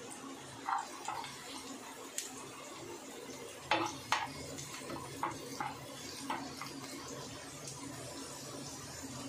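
Chopped garlic and green chilli frying in oil in a non-stick pan with a steady sizzle, while a metal spoon stirs them and clinks and scrapes against the pan several times, loudest about four seconds in.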